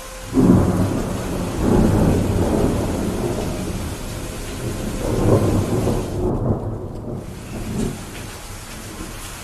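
Thunder rumbling over steady rain: a sudden clap about half a second in rolls on, swells again around five seconds and dies away near the end, with the rain's hiss continuing underneath.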